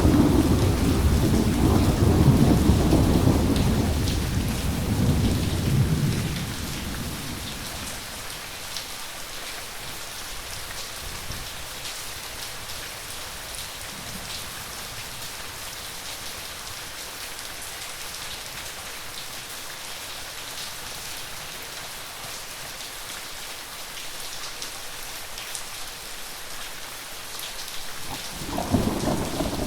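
Steady rain falling during a thunderstorm. A long rumble of thunder fades out over the first six seconds, and another rumble starts near the end.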